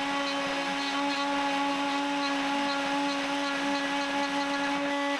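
Bosch 1617 router motor, used as a CNC spindle, running at high speed with a 1/2 in carbide insert end mill fitted. It gives a steady, even whine.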